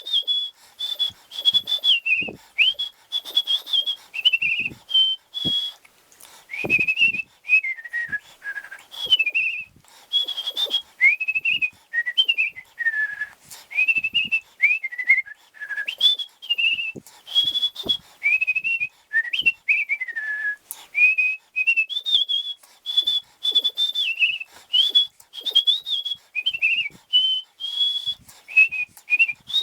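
A person whistling a tune through the lips: a single high line of short notes and quick slides, in broken phrases with brief pauses for breath between them.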